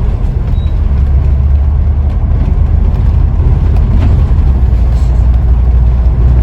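Scania N94UD OmniDekka double-decker bus engine running on the move, a steady deep drone heard from inside the passenger saloon.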